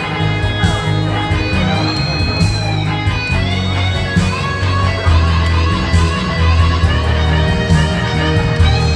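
Instrumental break of a Japanese ballad's backing track, a guitar-led melody over a heavy, steady bass, with a lead note bending in pitch about two seconds in.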